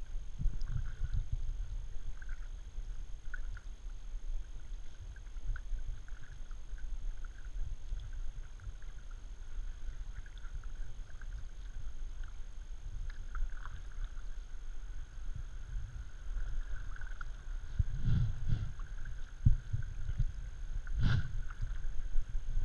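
Kayak being paddled along a calm creek: quiet paddle strokes and drips over a steady low rumble on the bow-mounted camera's microphone, with a couple of dull knocks near the end.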